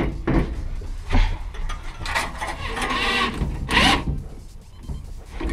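Cordless impact driver running in short bursts, its hammering rattle driving a bolt on the Accusump's mounting clamp, with the loudest burst a little before the end.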